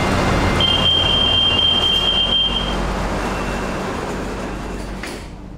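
BTS Skytrain car standing at a station with its doors open: a steady hum from the train. A high steady tone sounds for about two seconds a little way in, and the whole sound fades away near the end.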